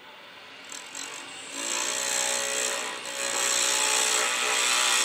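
Record Power Regent 220 wood lathe spinning up, then a carbide rougher cutting a segmented pen blank of stabilized wood with aluminium layers: a loud, steady hiss over the motor's whine from about a second and a half in, easing briefly about three seconds in.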